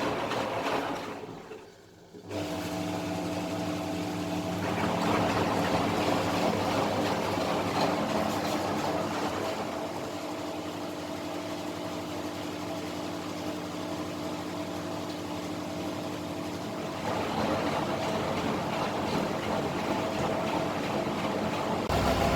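Candy Formula Inox P 7.71X washing machine running: it goes quiet for a moment, then a steady motor hum starts abruptly and the churning noise of drum and water swells in stages.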